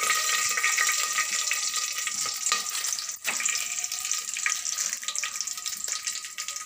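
Whole spices sizzling and crackling in hot oil and ghee in an aluminium pot, a steady dense crackle with a few sharper pops.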